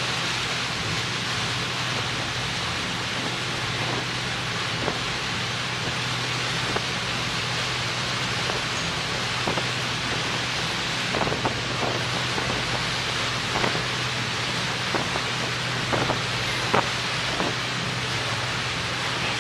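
High-speed catamaran ferry (Marinteknik CPV 36m) running past at speed: a steady rushing hiss of wake and wind over a constant low engine drone. A few short sharp knocks come in the second half.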